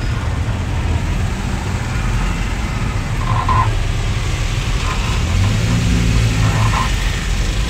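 Engine and road rumble heard inside a small van's cabin while it drives through traffic: a loud, steady low drone.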